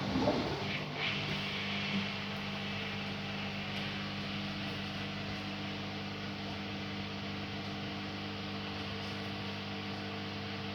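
Haier HW100-1411N washing machine running steadily, with an even motor hum.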